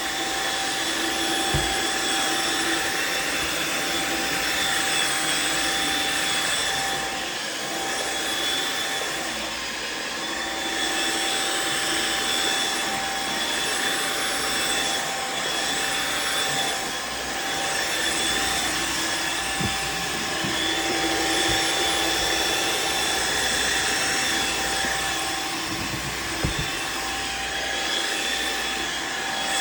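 Riccar R70 wet-dry floor washer running: a steady motor whine with constant high tones over a noisy rush of air, with a few brief low knocks.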